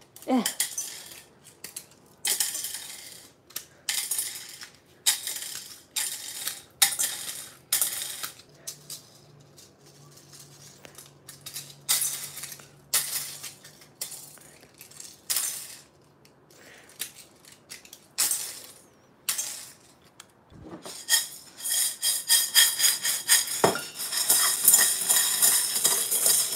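3D-printed PLA plastic corn kernels clattering into a stainless steel saucepan, dropped in handfuls as they are broken off a toy cob: short rattling bursts about every second. Near the end the pile is stirred with a wooden spoon, a dense continuous rattle of plastic on steel.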